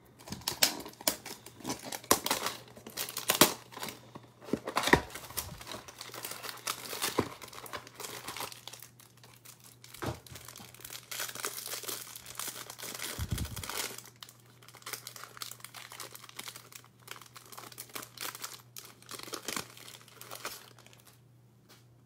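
Cellophane wrapper being torn open and crinkled in the hands around a stack of trading cards from a cardboard hanger box. The plastic crackles busily for the first dozen seconds or so, then more lightly.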